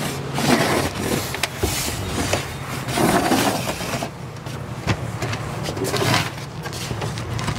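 Aluminum sheet and bubble wrap rustling and scraping in several short bursts as the metal pieces are handled, over a steady low hum.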